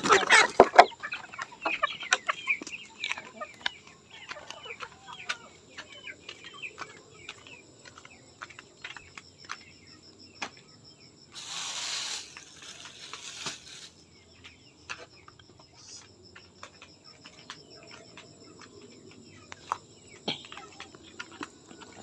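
A flock of chickens clucking and scrambling, with wing flaps, loudest in the first second, then quieter scattered clucks and small knocks. A brief rustling noise comes about halfway through.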